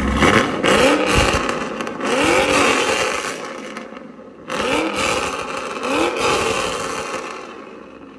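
LS V8 pickup free-revving through a resonator-deleted Corsa Extreme axle-back exhaust with an X-pipe: several quick throttle blips, each rising and falling. There is a short lull about four seconds in, and the engine settles back down near the end.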